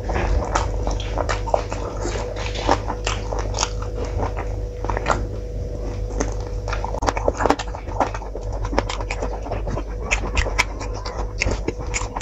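Close-miked eating sounds of a person eating by hand: chewing, biting into roast chicken and lip smacks, heard as many short sharp clicks, over a steady hum.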